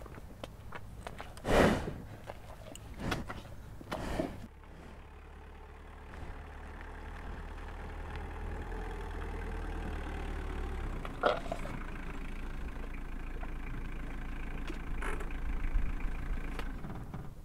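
A bull snorting a few times in the first few seconds, the loudest about one and a half seconds in. From about four and a half seconds in, a vehicle engine idles steadily, with a sharp knock near the middle.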